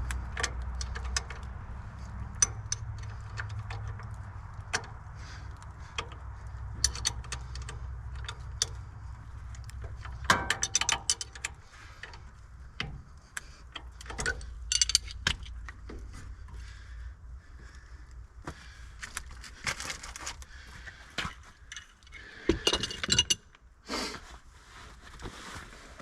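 Irregular metallic clinks, knocks and rattles of metal tools and parts being handled, over a low steady hum that fades out about halfway through.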